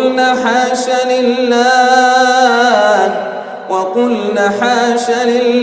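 A man chanting Quran recitation in melodic tajweed style, drawing out long, ornamented held notes. One phrase steps down in pitch about three seconds in, and after a brief dip a second phrase begins.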